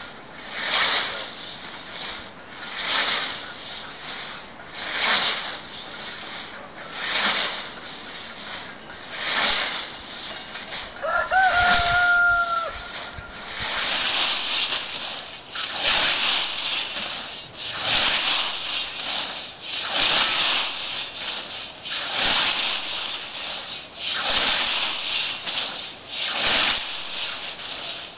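85 cm scythe blade on a wooden Eastern-style snath swishing through dense young dandelions and white clover, one hissing stroke about every two seconds, the strokes fuller and louder in the second half. A single long, held animal call sounds a little before the midpoint.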